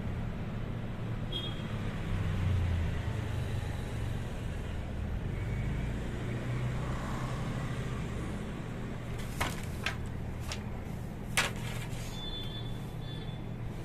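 Steady low background rumble, with four sharp wooden knocks about nine to eleven seconds in, the last the loudest, as the wooden rods and beam of a handloom are handled.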